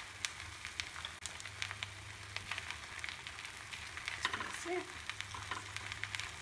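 Semolina uttapam batter sizzling in a little oil on a non-stick pan, with steady crackling pops. About four seconds in a wooden spatula presses and scrapes on the batter.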